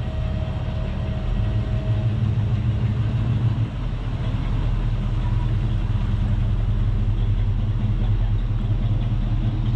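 Low, steady engine rumble of a white custom classic car rolling slowly by at close range.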